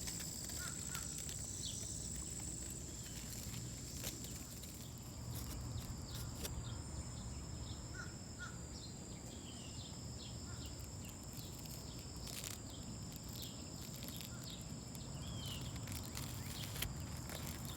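Outdoor ambience of small birds chirping in short scattered calls, over a steady high-pitched whine and a low rumbling background noise.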